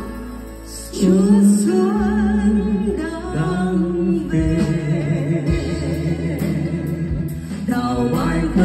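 A Vietnamese spring (Tết) song playing: a voice singing the melody over a backing track. It dips quieter for about a second at the start, then carries on.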